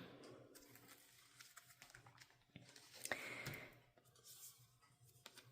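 Near silence, with faint small clicks and a soft rustle about three seconds in: paper album inclusions being handled.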